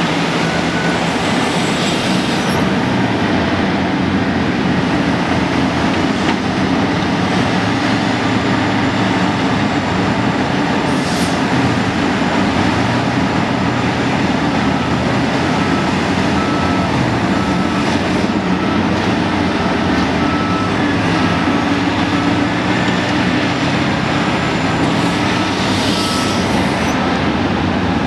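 Heavy diesel engine of a CAT 5130 excavator running hard while it digs and loads a haul truck, its pitch rising and falling with the work. A faint beep sounds about once a second for several seconds in the middle.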